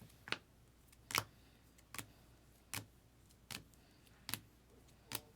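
A run of light, sharp clicks or taps, evenly spaced about one every 0.8 s, seven in all.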